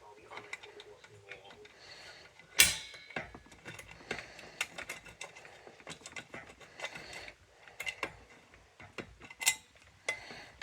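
Clicks and rattles of a fire alarm pull station being worked by hand to reset it, with one loud sharp click about two and a half seconds in and a few more clicks near the end.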